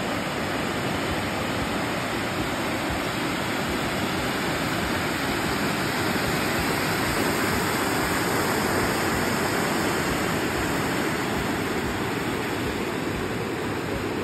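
Rushing, churning water of a tidal bore: a breaking wave front surging upriver over the incoming tide, a steady rush with no let-up.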